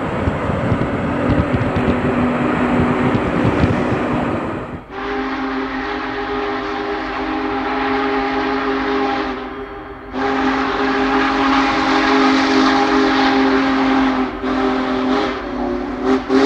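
Road and car noise for the first five seconds, then the steam whistle of Union Pacific Big Boy 4014 blowing a steady chord in two long blasts, followed by a few shorter ones near the end.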